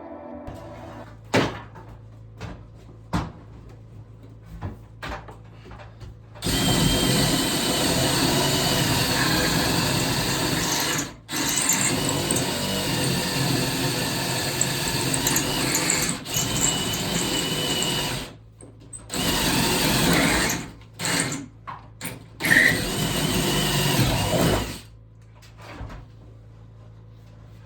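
A power tool, drill-like, running in two long runs of several seconds each, then in several short bursts; a few sharp knocks come before it starts.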